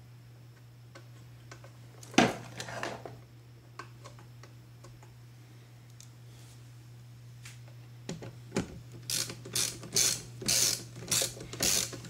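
Hand socket ratchet clicking in quick back-and-forth strokes, about two a second, starting late and tightening the mounting bolts of a new windshield wiper motor. About two seconds in there is a single sharp knock and a short clatter.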